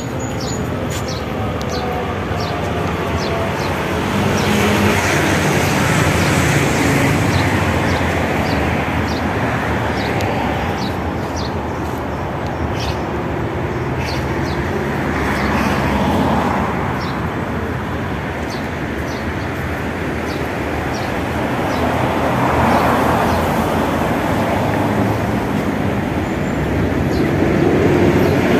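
Steady road traffic, with cars passing every few seconds and swelling then fading. Footsteps at a walking pace, about two a second, tick faintly over it.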